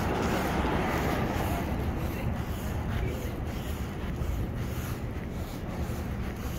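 Traffic on a city street, cars driving past close by, heard as a steady wash of noise that eases a little after the first few seconds, with low rumbling wind on the microphone.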